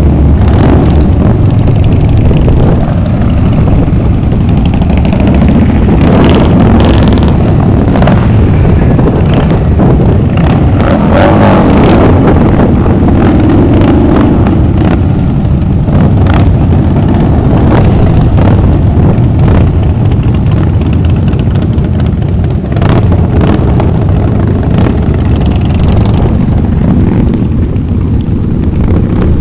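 A long line of cruiser and touring motorcycles riding past one after another, their engines rumbling loudly and overlapping, the line thinning out near the end.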